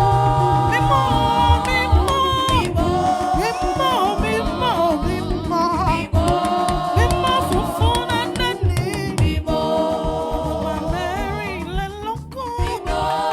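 Gospel praise music: sustained, wavering sung notes over a dense drum-backed instrumental accompaniment.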